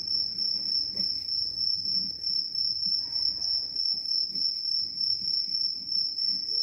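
Crickets chirping in a steady, high-pitched continuous trill.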